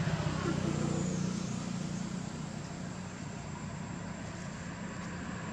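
A steady low mechanical hum under a noisy hiss, a little louder in the first second or so and then easing off.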